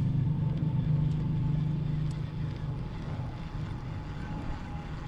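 Low, steady motor hum with a thin faint higher tone above it; the hum fades down about two seconds in.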